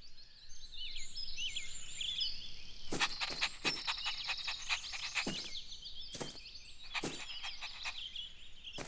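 Garden ambience of small birds chirping, with several short knocks in the middle.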